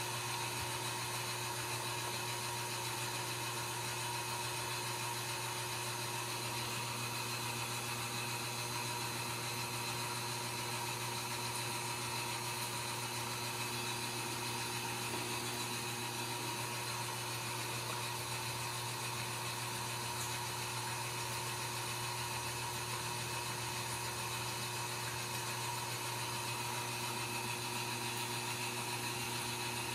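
Steady machine hum with a few thin whining tones above it, unchanging in level and pitch throughout.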